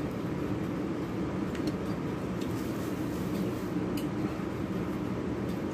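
Steady low mechanical drone, with a few faint clicks.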